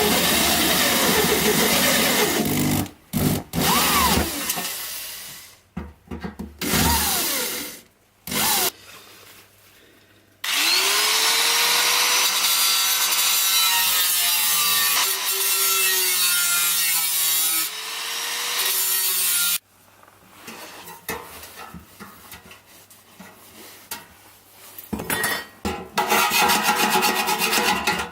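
Tools working a steel ammo can into a stove. First come several short passes of sawing or filing, then about nine seconds of a power tool running, its pitch sagging and recovering. Near the end there are fast, even rasping strokes.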